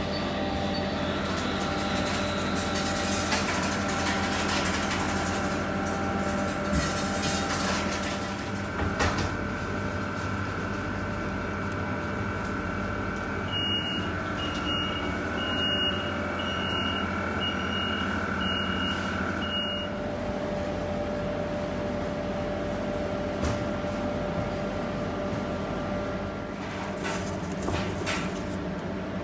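Steady hum of bakery equipment running. About midway comes a run of about seven short high electronic beeps, roughly one a second, like an appliance timer. A hissing rush sounds twice within the first eight seconds.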